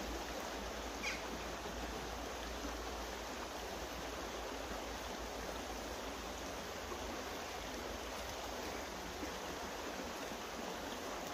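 Steady rush of a flowing stream, with a brief high chirp about a second in.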